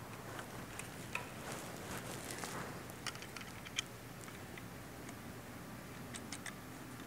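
Faint, scattered small clicks and ticks of hand work on a brass wire connector: copper wire fed into the coupling and its set screw worked with a screwdriver.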